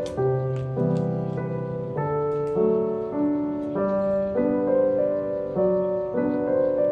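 Background piano music: a solo piano playing a slow melody over sustained chords.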